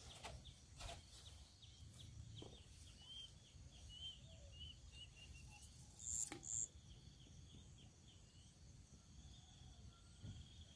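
Near silence: faint outdoor ambience with a low rumble. A run of small high chirps comes a few seconds in, and two short, very high blips with a click about six seconds in.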